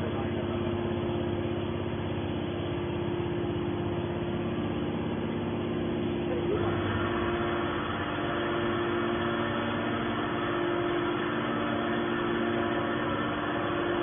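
Hydraulic scrap-metal baler's power unit running with a steady hum of several held tones. About halfway through, a higher, brighter layer joins in and holds.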